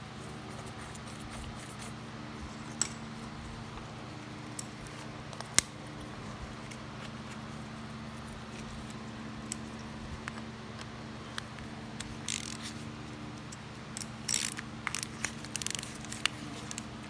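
Small metal clicks and clinks from a lawnmower carburetor and its parts being handled and fitted by hand, a few at a time, then a quicker run of light rattling clicks near the end, over a steady low hum.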